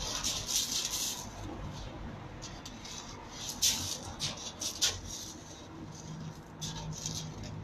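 Feet scuffing and crunching on loose gravel as two people grapple, in irregular bursts, with two sharper crunches about three and a half and five seconds in.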